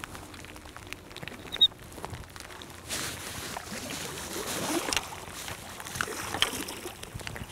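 Water sloshing and splashing around a fishing kayak, with a steady hiss that swells for a couple of seconds midway. One sharp click about one and a half seconds in.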